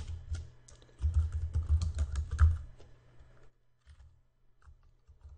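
Computer keyboard typing: a quick run of keystrokes, with dull low thuds under the clicks, for about three and a half seconds, then a few scattered keystrokes near the end.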